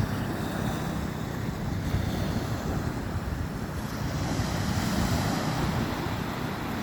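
Ocean waves washing onto the shore, a steady surf noise with wind buffeting the microphone.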